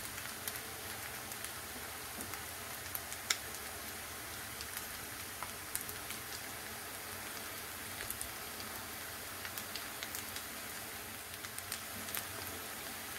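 Bacon, hash browns and eggs sizzling in bacon fat in a frying pan: a steady hiss with scattered small pops and crackles.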